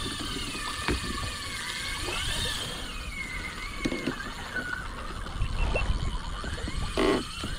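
Fishing reel's drag whining as a big, freshly hooked fish strips line off on its first run, the whine rising and falling in pitch with the fish's speed. A low rumbling noise runs underneath.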